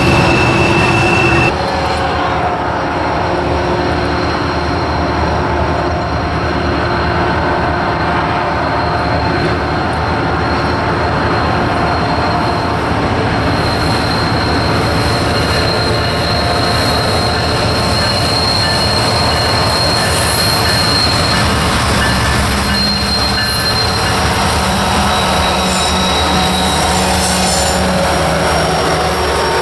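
Freight train rolling past with steel wheels squealing in thin, steady high tones over the rumble of the cars. The sound changes abruptly about a second and a half in as a second train takes over, and a diesel locomotive's engine grows louder near the end as it passes close by.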